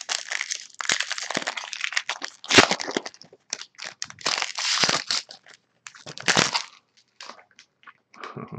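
A Magic: The Gathering booster pack's foil wrapper crinkling and crackling as it is torn open by hand, in a run of short bursts. The sharpest crackle comes about two and a half seconds in.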